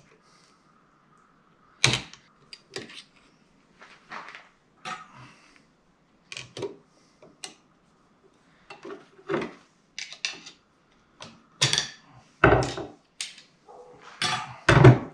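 Metal parts and hand tools clinking and knocking while a transfer case is taken apart on a wooden workbench: irregular clicks and knocks, the loudest a few near the end.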